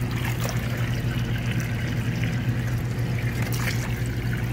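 A steady stream of water pouring from a hose into a plastic tub that already holds water, splashing continuously over a steady low hum.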